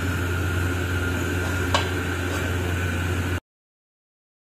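Steady low hum with a hiss over it, broken by one short sharp click a little under two seconds in; the sound cuts off abruptly about three and a half seconds in.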